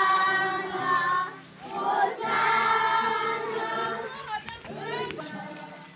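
A crowd of many voices, children and adults, singing together outdoors while walking, in held notes sung in phrases with short breaks between them.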